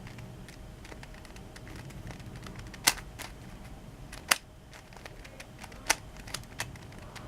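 Plastic clicking and clacking of a DaYan Megaminx puzzle's faces being turned, its corner cutting being tried out: a run of light ticks with three sharp, louder clacks.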